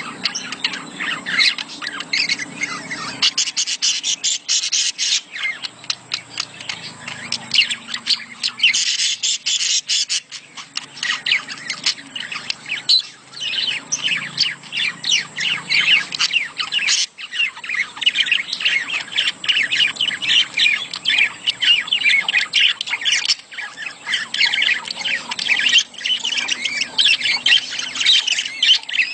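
Budgerigars chattering in a dense, continuous stream of rapid chirps, warbles and squawks: budgie mating calls.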